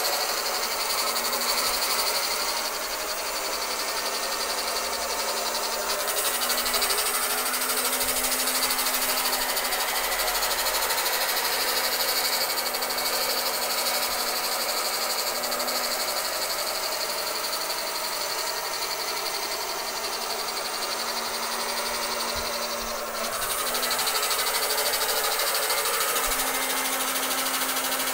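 Electric round-knife cloth cutting machine running steadily as its circular blade cuts through a thick stack of spread fabric layers: a constant motor hum and hiss, its pitch shifting a little now and then, with a brief dip a little before the end.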